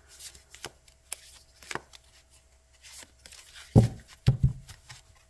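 Oracle card deck being shuffled and handled, with soft clicks and flicks of stiff cards, then two loud low thumps about four seconds in.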